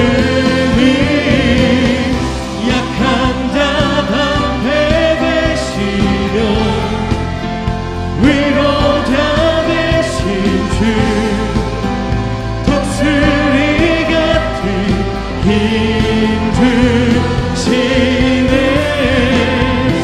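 Worship team and congregation singing a Korean contemporary Christian praise song with keyboard accompaniment.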